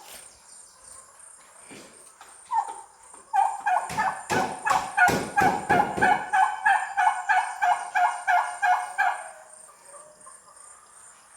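Domestic turkey calling: a rapid run of evenly spaced repeated notes, about three or four a second for some six seconds, with a few loud knocks partway through. A steady high insect whine runs underneath.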